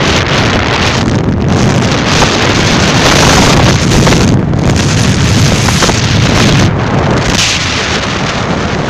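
Heavy wind buffeting the microphone on the move: a loud, rushing noise that surges and dips unevenly.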